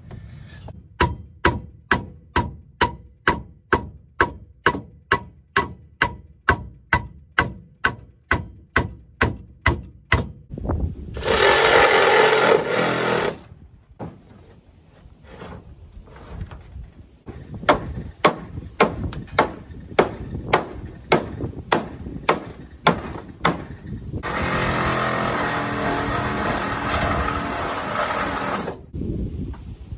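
Hammer blows on wood, steady at about three a second for some ten seconds, then a power tool running briefly. More scattered blows follow, then the power tool runs again for about four seconds.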